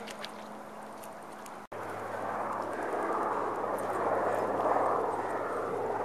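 Distant engine noise that swells to a peak about three to five seconds in and then eases off. Before it, a quieter stretch with a steady low hum ends in an abrupt cut.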